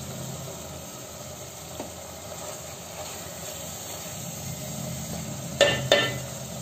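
Sangri curry in oil sizzling and hissing steadily in an aluminium pot over a lit gas burner as it is stirred with a spoon. Near the end come two sharp knocks a moment apart.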